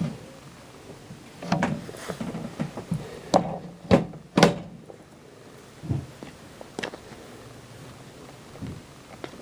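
A few scattered knocks and thuds, with three sharp, loud knocks close together about halfway through and quieter stretches between.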